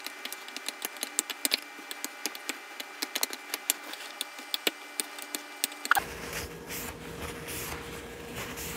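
Utensils clicking and tapping against the dish as sauce is mixed into cooked stir-fry instant noodles, many quick irregular taps. About six seconds in the tapping mostly stops and only a faint steady hum remains.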